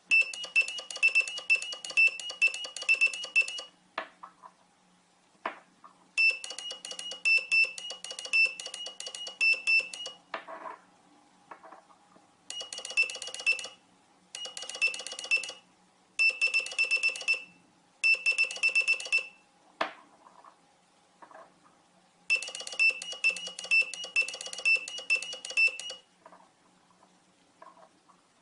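Electric car horn driven by a melody horn module, buzzing out short tunes note by note in several bursts of one to four seconds with pauses between. A few sharp clicks fall in the pauses.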